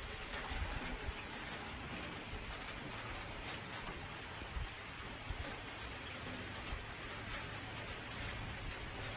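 Steady rain falling, an even hiss with a few brief low thumps.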